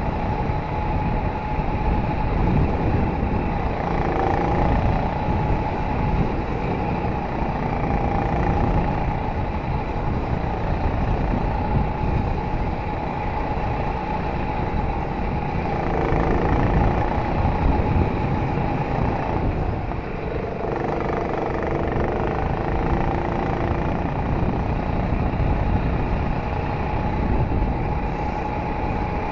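Go-kart driving at race speed, heard from a camera mounted on the kart: a steady running drone and rumble with a constant high tone, and lower tones that come and go through the corners.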